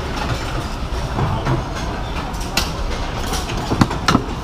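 Working floor of a cigar factory: a steady low rumble of room noise, with scattered sharp clicks and taps from the rolling tables, the loudest near the end.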